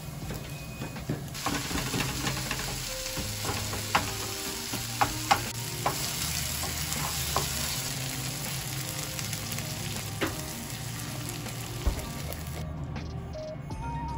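Minced meat, onion and curry powder sizzling in a frying pan as they are stirred with a spatula, with scattered sharp clicks of the spatula against the pan; water is poured in partway through. The sizzling cuts off suddenly near the end.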